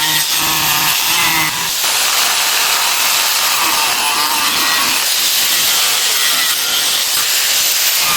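Steady rasping of a hand tool working material, without a break.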